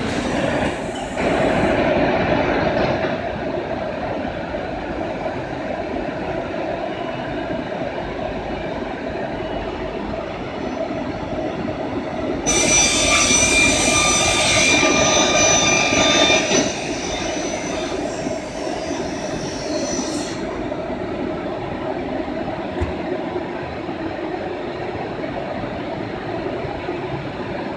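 CNC router machining a panel: steady machine noise throughout, with a louder, high-pitched whine for about four seconds around the middle.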